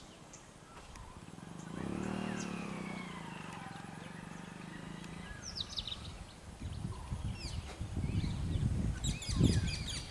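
Birds chirping over outdoor background noise. A motor engine's hum swells about two seconds in and fades over the next few seconds, and low rumbling bursts build toward the end.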